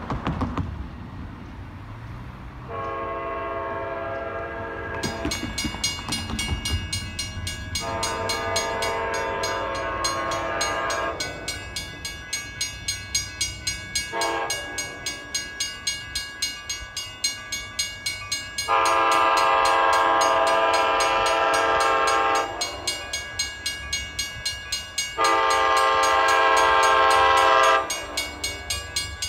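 An approaching ACE commuter train's K5LA multi-chime air horn sounds the grade-crossing pattern: two long blasts, a short one and a long one, then one more long blast, each a chord of several steady tones, growing louder as it nears. From about five seconds in, a grade-crossing warning bell rings fast and regularly underneath.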